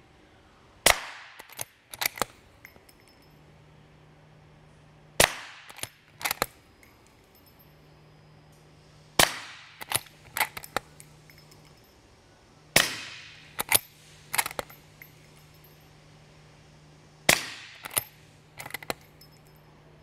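Five suppressed shots about four seconds apart from a .450 Bushmaster bolt-action rifle, a Mossberg Patriot, fitted with a SilencerCo Hybrid 46 suppressor and firing Hornady 395-grain subsonic ammunition, each metering about 127–135 dB. Each shot is followed by a few sharp clacks of the bolt being worked.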